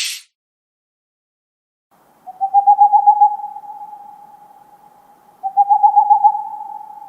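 An owl calling twice, each call a fast run of pulsed hoots on one pitch that trails off into a long fading tone. A short hiss cuts off just at the start.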